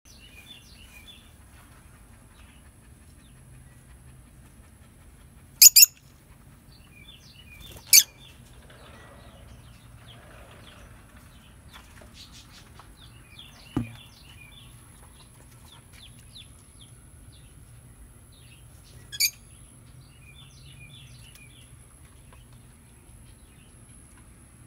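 Peach-faced lovebirds chirping in small bursts, with a few loud, shrill, very short calls: two in quick succession about a quarter of the way in, another two seconds later, and one about three quarters of the way in. A single soft knock comes near the middle.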